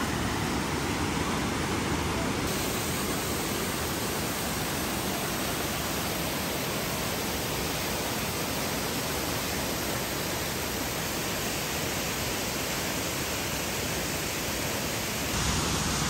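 Waterfall and fast river water rushing over rocks: a steady, even roar of white water with no breaks.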